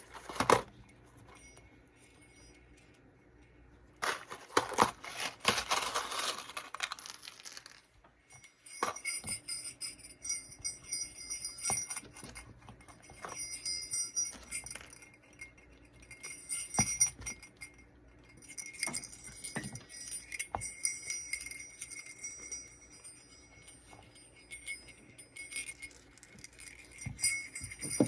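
Sleigh bells on a leather belt jingling in repeated shakes every couple of seconds, their high ringing hanging on between shakes. A scraping rustle about four seconds in comes before them.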